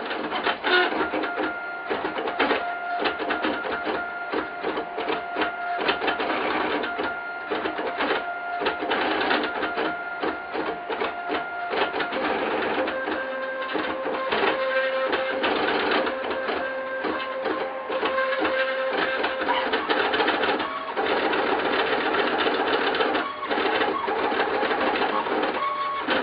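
Trinity Labs Aluminatus 3D printer running: the stepper motors driving its lead-screw axes give a steady whine whose pitch shifts to new notes twice as the print speed changes, over fast ticking from the quick moves of the print head.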